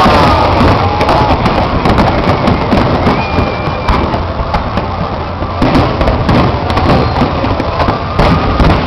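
Aerial fireworks bursting in rapid succession: a dense, unbroken run of loud bangs and crackles.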